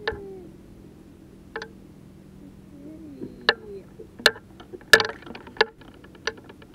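Irregular sharp knocks and clicks of someone moving about and handling things aboard a bass boat. They come sparsely at first, then thicker and louder from about four seconds in, with a short rattling cluster about five seconds in.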